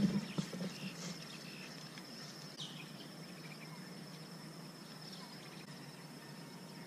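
Steady high-pitched insect trill over quiet outdoor ambience, with a few soft knocks in the first second.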